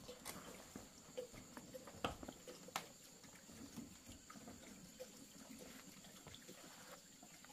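Faint, scattered knocks and clicks of a bamboo shack door being pulled shut and fastened by hand, with one sharper knock about two seconds in.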